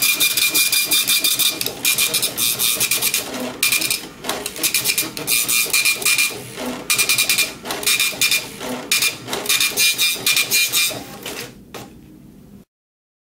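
Star SP747 dot-matrix impact receipt printer printing: a rapid buzzing rattle of the print head striking the paper, in passes separated by short pauses. The printing stops near the end.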